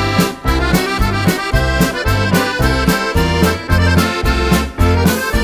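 Accordion playing a polka: a lively melody over a steady alternating bass-and-chord accompaniment, about two beats a second.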